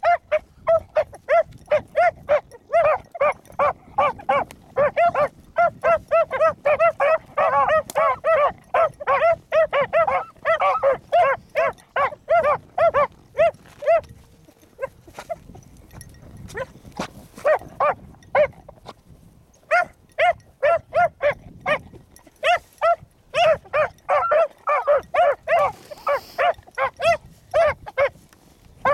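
Two young beagle pups baying in quick, repeated, overlapping barks as they trail a rabbit's scent. The baying thins out briefly past the middle, then picks up again.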